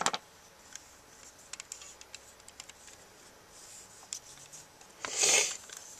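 Faint, scattered clicks and taps of a plastic toy being handled close to the microphone, with a short rustling hiss about five seconds in.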